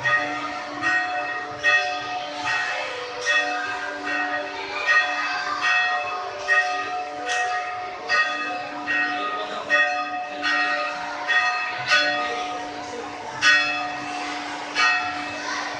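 Church bells pealing, a stroke about every three-quarters of a second, several bells of different pitches ringing on over one another.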